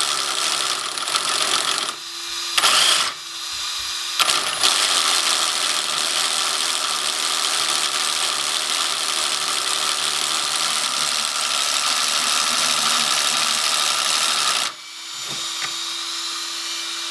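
Electric motor of a 3D-printed RC snowmobile run up on the throttle, driving its transmission and plastic track with the track off the ground: two short bursts, then one long run of about ten seconds that cuts off near the end. Between the runs a small cooling fan whines steadily.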